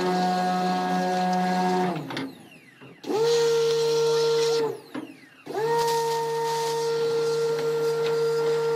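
Pressure washer running, its motor a steady whine under the hiss of the spray, as it blasts boric-acid-hardened casting investment out of a flask. About two seconds in the motor cuts out and winds down, starts again about a second later, cuts out once more near the middle and restarts, each stop a quick fall and each start a quick rise in pitch.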